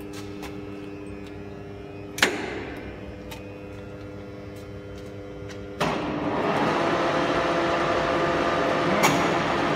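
Collet BFF100 horizontal boring machine with its drive humming steadily, a sharp clunk about two seconds in, then the machine starts a louder steady mechanical running noise about six seconds in, with another short knock near the end.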